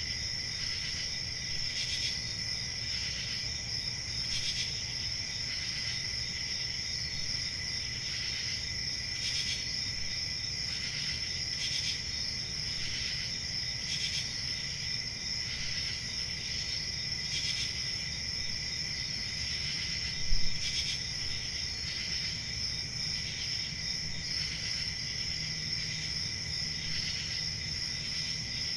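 Crickets chirping in a steady chorus: a continuous high trill with louder pulses every second or two. A brief low thump sounds about two-thirds of the way through.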